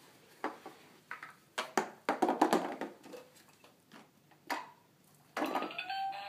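Scattered plastic clicks and knocks from a ride-on toy car being handled, loudest in a quick cluster about two seconds in. Near the end the toy's electronic sound starts, a steady electronic tone.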